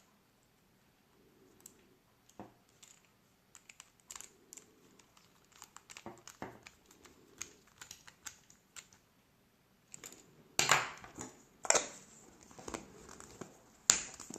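Handling noise from working on an LED bulb's parts by hand: scattered small clicks, taps and crinkly rustles. They are sparse at first, then denser and louder in the last few seconds, with three sharp clicks standing out.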